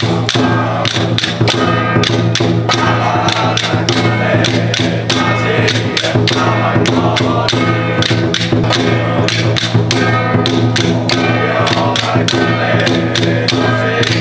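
Temple ritual music: steady held tones from wind instruments under quick, evenly spaced percussion strikes, played without a break.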